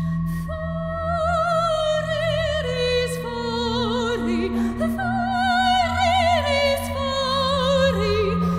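A woman singing in an operatic style with wide vibrato, moving between long held notes, over steady low electronic drones and held electronic tones.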